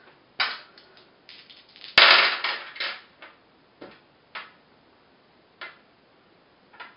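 Four small plastic dice thrown onto a sheet of paper on a tabletop, clattering as they tumble for about a second from two seconds in. A few separate clicks follow as single dice are moved and set down.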